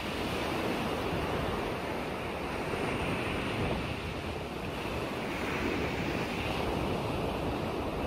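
Choppy freshwater lake waves washing steadily, with wind blowing over the microphone.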